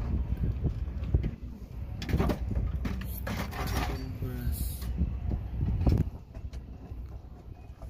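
Screwdriver and hand work on the metal end cap of an L-410's electric propeller feathering pump motor during a carbon brush change: scattered clicks and scrapes of metal on metal, a cluster from about two to four seconds in and a last one about six seconds in, over a steady low rumble.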